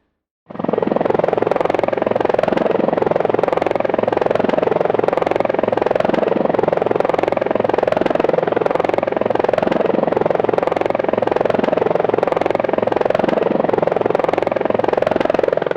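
Helicopter rotor blades chopping in a fast, steady beat, loud and unchanging. It starts abruptly about half a second in and stops abruptly near the end.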